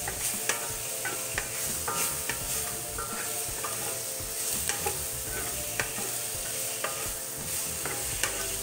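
Diced chicken sizzling in oil in a cast-iron skillet over high heat, with a steady hiss throughout. A wooden spatula scrapes the pan and knocks against it irregularly, about once or twice a second, as the pieces are stirred, and some knocks leave a brief ring from the pan.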